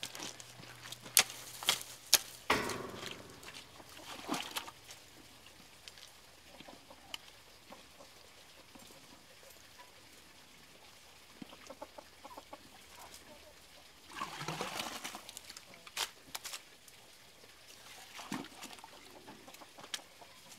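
A long-handled digging tool strikes and scrapes gravelly soil several times in the first few seconds while a fence post hole is dug; chickens cluck now and then, with one louder outburst a little after the middle.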